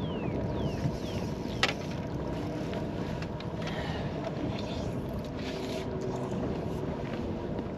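Wind and lake water against a bass boat's hull, under a faint steady hum, with one sharp click about one and a half seconds in.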